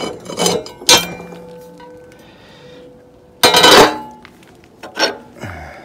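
Steel circular saw blade being handled and set down: a few metallic clinks and clanks, the loudest clatter a little past halfway, with a brief ringing tone after a sharp knock about a second in.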